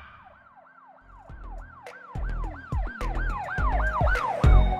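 Siren sound effect: a wailing tone that swoops up and down about three times a second and grows louder, over deep bass hits that come in about a second in.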